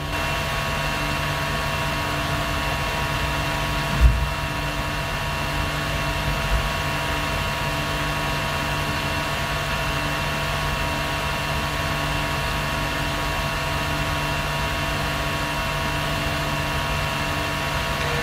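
Steady low drone with several thin held tones above it, and a single low thump about four seconds in.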